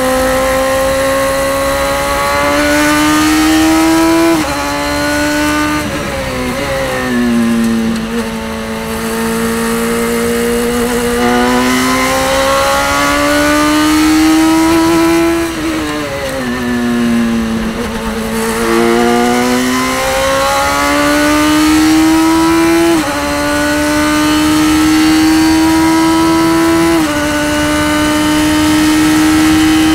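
Radical race car engine at racing speed, heard from the open cockpit. Its note climbs steeply under throttle and falls away twice as the car slows for corners. There are sharp pitch drops at quick sequential upshifts, two of them in the last few seconds as the car pulls up through the gears.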